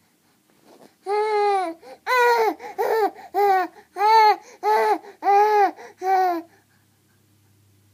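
A young baby vocalizing in a run of about eight short calls, each rising and then falling in pitch.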